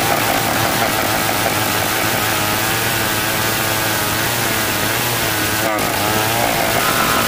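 Old Stihl chainsaw ripping lengthwise through a hard marsawa batu log. The engine runs steadily under load in the cut, its pitch wavering slightly.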